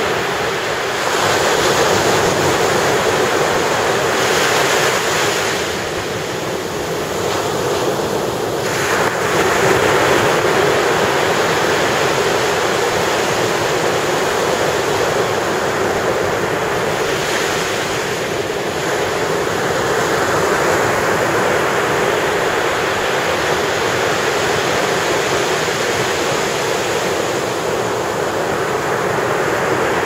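Ocean surf breaking onto a sandy beach: a continuous wash of waves that swells louder every few seconds as each wave breaks and runs up the sand.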